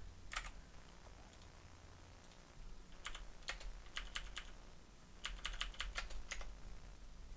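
Typing on a computer keyboard: a click or two near the start, then two short runs of keystrokes about three and five seconds in.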